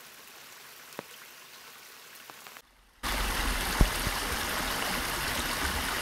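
A small shallow stream running steadily. At first it is faint with hiss. About two and a half seconds in it cuts out briefly, then comes back much louder and fuller, as if a different microphone recorded it.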